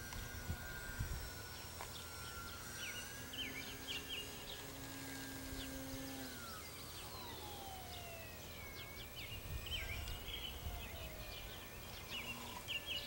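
Faint, high whine of a small RC plane's 1300 kV electric motor in flight. It holds fairly steady, then its pitch slides smoothly down a little past halfway.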